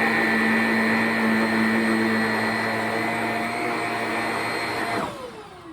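Shark Rocket stick vacuum running steadily on carpet, picking up baking soda, then switched off about five seconds in, its motor winding down with a falling whine.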